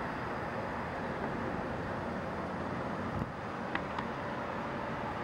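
Steady hum of road traffic, with a couple of faint, short high chirps a little past the middle.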